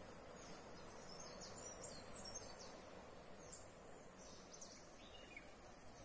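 The faint rushing of a distant river, a low steady hiss. Over it, small birds give quick high chirps, and a thin, steady, high-pitched insect drone grows louder about four seconds in.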